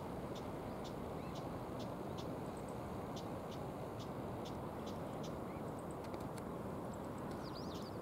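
Steady rushing of the river flowing over its stony bed, with faint short high ticks repeating about twice a second and a brief high chirping bird call near the end.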